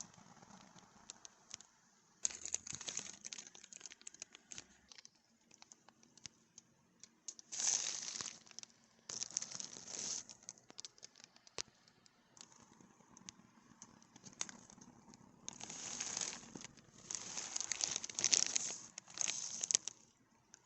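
Typing on a Redragon UCAL K673 PRO mechanical keyboard: rapid clacking of keystrokes in several bursts of fast typing, with slower scattered key presses in between.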